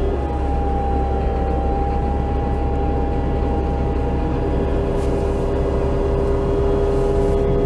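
Cabin ride sound of a 2005 New Flyer C40LF CNG transit bus under way: a steady low engine and road rumble with a drivetrain whine that drifts slowly lower, and a second, lower whine that comes in about halfway through.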